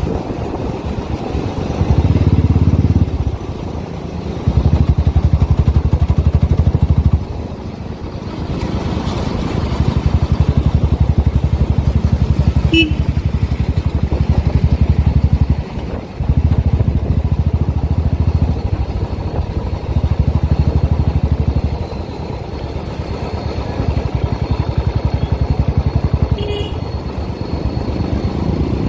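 Royal Enfield Signals 350 single-cylinder engine running at road speed through an aftermarket Red Rooster exhaust. The engine note grows louder for stretches of a few seconds and eases off between them.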